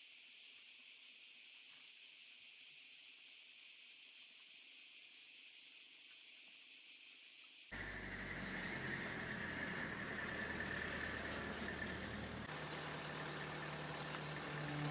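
Outdoor field ambience: a steady high-pitched hiss, which about eight seconds in gives way to a fuller, lower rumbling noise.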